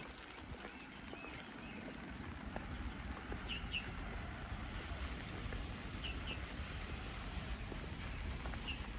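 Steady rain with a walker's footsteps on wet ground. A faint short double chirp recurs about every two and a half seconds.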